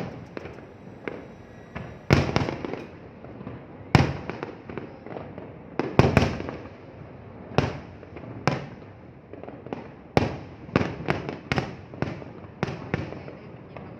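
Fireworks display: aerial shells bursting one after another, each a sharp bang that trails off in an echo, about every one to two seconds and coming faster in the second half.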